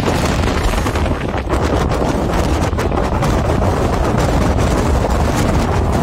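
Wind buffeting the microphone over the steady rumble of an open vehicle driving across a rough field, with scattered small knocks and rattles.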